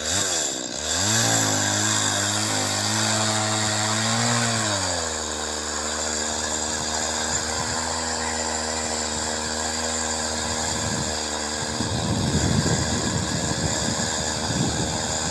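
Petrol chainsaw cutting a hole through river ice. The engine revs up and down at first and runs high for about five seconds, then settles to a steady lower pitch as it cuts. A rough rasping noise joins it near the end.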